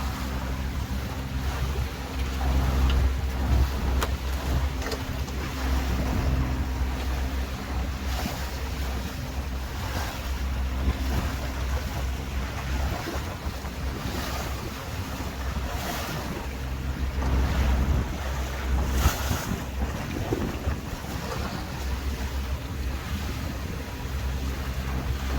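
A tour boat's engine running steadily, a low droning hum. Wind gusts buffet the microphone and the sea rushes past the hull.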